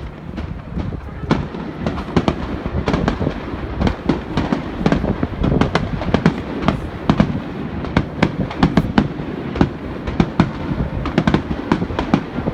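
Aerial fireworks shells bursting in a dense, irregular string of sharp bangs, several a second, thickening after about the first second over a continuous low rumble.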